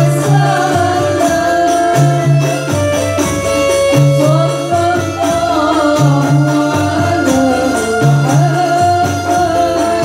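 Live Indonesian rebana religious music: a woman singing a wavering melody into a microphone over frame drums with jingles and a goblet drum, with a low bass figure that repeats about every two seconds.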